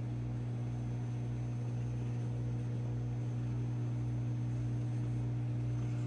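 Hommer 700-watt, 20-litre microwave oven running a one-minute heating cycle: a steady low hum that does not change.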